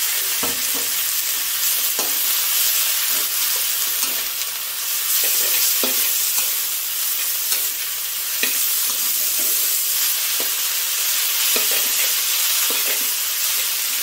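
Stir-frying in a hot wok: rice vermicelli, pork and water mimosa sizzle with a steady hiss while a metal spatula tosses them, scraping and knocking against the wok at irregular moments.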